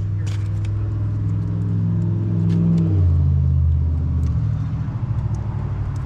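An engine running steadily with a low hum that drops in pitch about three seconds in, and a few light clicks as ignition coil connectors are unplugged.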